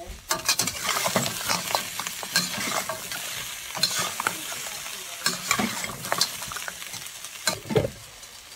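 Lobster pieces sizzling in a hot wok while a metal ladle stirs and tosses them, with frequent scraping and clacks of shell against the pan. The stirring eases off near the end.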